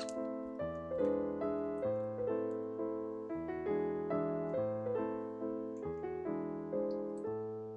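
Background piano music: gentle chords over a bass line, a new chord struck about every second and dying away.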